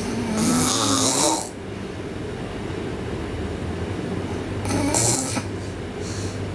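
A sleeping girl snoring loudly: two long snores, the first about a second and a half long at the start and the second around five seconds in, each a breathy hiss with a wavering low pitch. A fainter breath follows near the end, over a steady low hum.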